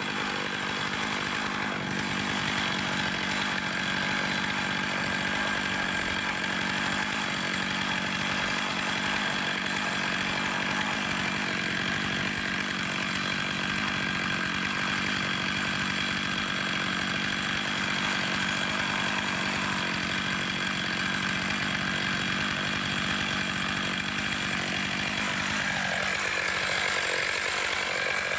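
Stihl MS461 two-stroke chainsaw held at steady full throttle in a Granberg Alaskan chainsaw mill, ripping a slab along an ash log. Near the end the throttle is let off and the engine drops quickly to idle.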